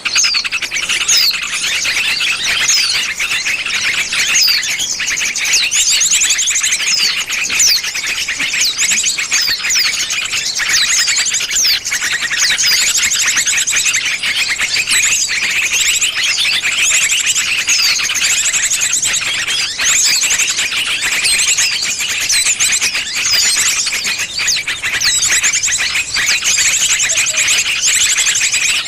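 Bird-luring recording: a loud, unbroken chorus of many small birds overlapping, with high-pitched chirps, rapid trills and quick falling notes.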